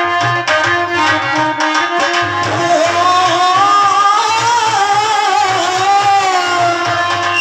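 Live Indian folk devotional music: harmonium notes and a steady hand-drum beat, with a singer coming in about two and a half seconds in on one long, wavering, ornamented note held almost to the end.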